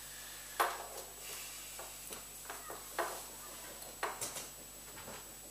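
A few sharp clicks and light knocks of things being handled on a tabletop, the strongest about half a second in, at three seconds and at four seconds, with fainter ticks between.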